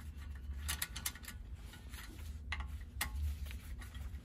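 T-handle hex key working the compressor head bolts loose: sharp metallic clicks, a quick cluster about a second in and two more near the middle, over a steady low hum.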